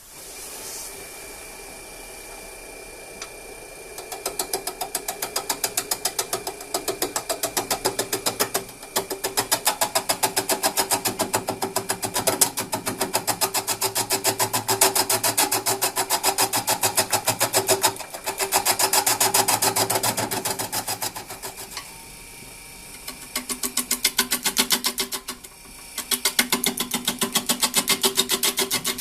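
Small electric machine running with a steady hum and a fast, regular clatter that grows louder in several long stretches, easing back to the bare hum in between.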